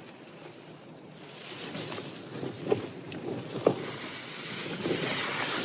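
A wind gust building against a Cloud Peak 2 tent, the fabric flapping and buffeting, with two sharp snaps about halfway through.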